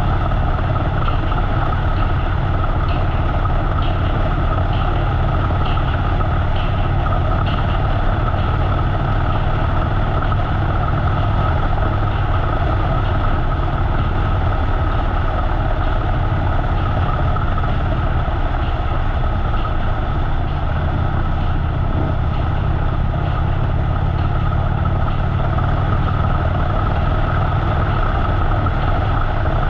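Harley-Davidson motorcycle's V-twin engine running steadily while riding, with constant wind and road noise on a bike-mounted GoPro.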